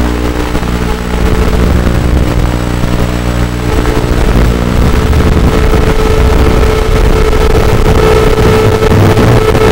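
Micro quadcopter's RCX 1804 brushless motors and propellers buzzing in flight, a steady hum with a noisy whoosh that gets louder about four seconds in.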